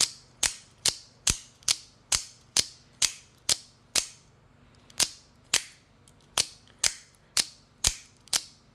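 AKC F-16 double-action out-the-front knife firing its blade out and back again and again, each slider push giving one sharp spring-driven snap. The snaps come about two a second, with a short pause about four seconds in.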